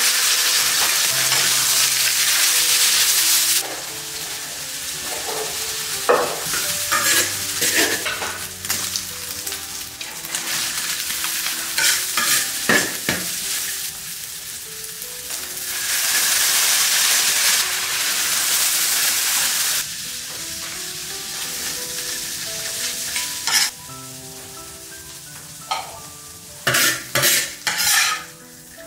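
Food being stir-fried in a hot pan. It sizzles loudly for the first few seconds and again a little past halfway. In between, and in a quick cluster near the end, a spatula scrapes and clacks against the pan.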